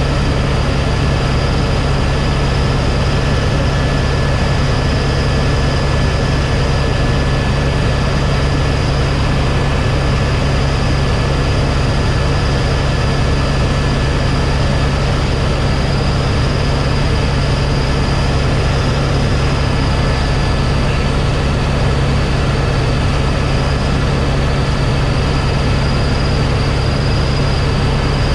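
Helicopter in flight, heard from inside the cabin: a loud, steady drone of engine and rotor with a constant high whine, unchanging throughout.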